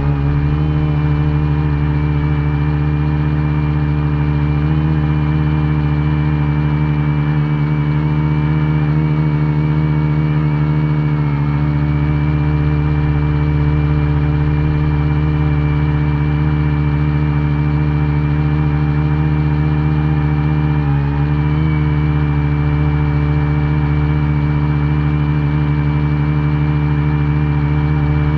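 Multicopter drone's electric motors and propellers humming steadily while it hovers, heard from its onboard camera, with a few brief wavers in pitch.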